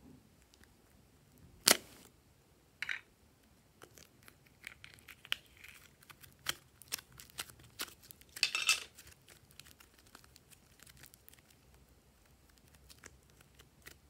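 Hands handling a plastic popsicle-shaped container and soft clay: a sharp plastic snap a couple of seconds in, then scattered small clicks and crinkles, and a brief crackling, tearing rustle a little past halfway as the blue clay is pulled free.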